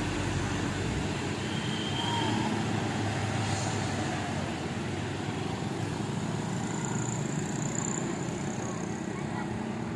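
Steady road-traffic noise of vehicle engines running, with a few faint short high tones.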